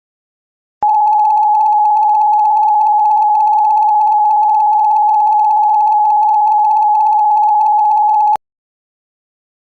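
Mock Emergency Alert System attention tone: one loud, steady, unwavering tone that starts abruptly about a second in, holds for about seven and a half seconds and cuts off sharply. It is the signal that an alert message is about to follow.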